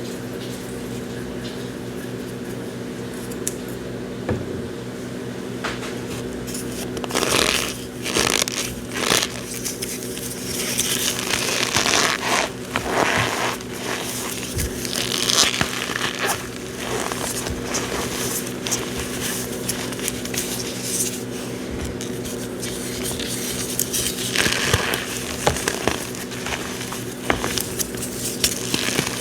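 Cornstarch being squeezed and pressed, giving irregular crunching, squeaking scrapes that start about a quarter of the way in and come in uneven clusters. A steady low hum runs underneath.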